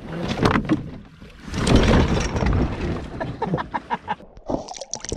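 Knocks and bumps against a canoe's hull and frame as people shift about in it, with a louder rush of noise about two seconds in.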